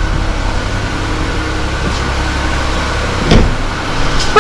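2021 Ford Escape running with a steady low hum, a sharp thump about three seconds in, and a short, pitched, horn-like beep at the very end.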